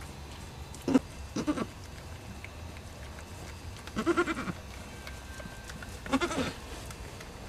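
Nigerian Dwarf goats bleating: a few short calls about a second in, then two longer bleats at about four and six seconds.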